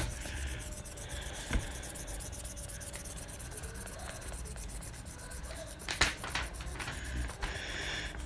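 Fast, steady back-and-forth rubbing on a paper book page, with a few short knocks, the loudest about six seconds in.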